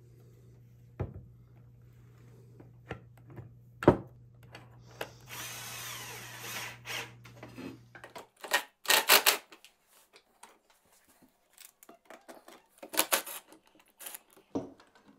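Cordless drill-driver running in several short bursts, driving into a wooden stair railing, with a few sharp knocks of wood and tool handling. A steady low hum runs under the first half and stops about eight seconds in.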